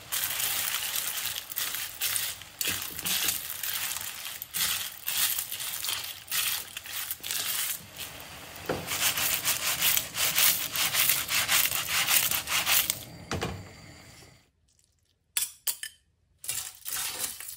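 Telline (wedge clam) shells clattering and clinking against an aluminium pan and each other as spaghetti is stirred through them in a sizzling sauce. It is a dense run of quick clicks that stops about 14 seconds in, leaving a short quiet gap with a few clicks of utensils as the pasta is lifted out to plate.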